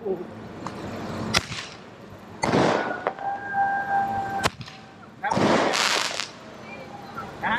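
Fireworks going off: a few sharp cracks, two longer hissing whooshes, and a steady whistle of about a second and a half partway through.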